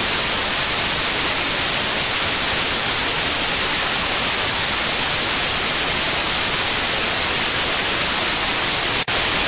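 Loud, steady white-noise static hiss, brightest in the high end, with a brief break near the end.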